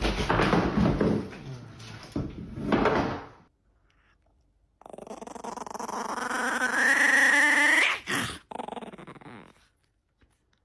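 A loud rough burst of noise lasting about three seconds as one cat lands on another, then a chihuahua puppy growling in a long, rising pitch that climbs into a high whine and stops abruptly, a small dog warning off a hand that pokes at it while it guards its toy.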